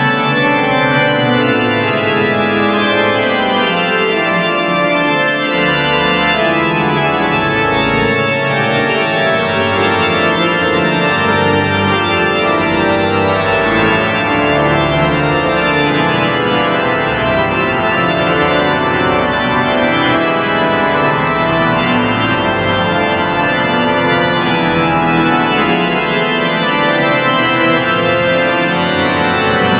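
Church organ played on manuals and pedals: loud, sustained full chords with a moving bass line in the pedals.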